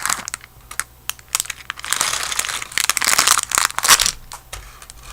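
Crinkly material being crumpled and handled close to the microphone: sharp crackling and clicking, sparse at first, then dense from about two seconds in to about four seconds.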